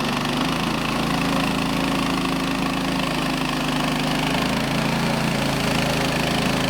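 Harbor Freight portable bandsaw mill's engine running steadily under load while the band blade cuts through a large ponderosa pine log.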